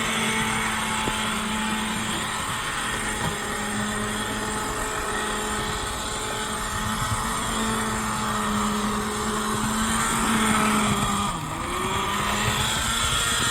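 HO scale Bachmann model locomotive running around the track at a steady, near-full speed: its small electric motor makes a constant hum with wheels clattering on the rails. It runs smoothly under its newly fitted circuit board, with a brief dip in the sound about eleven seconds in.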